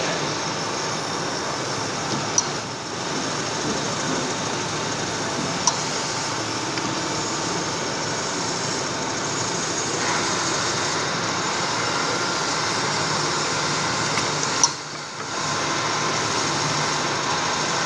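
Vertical milling machine running, its end mill cutting a metal block held in the vise: a steady machining noise with a few sharp clicks, the last followed by a brief dip near the end.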